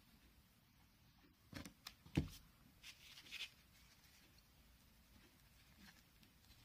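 Quiet handling of grosgrain ribbon craft pieces on a wooden table: a few light knocks about two seconds in, the loudest a single thump, then soft rustling of the ribbon.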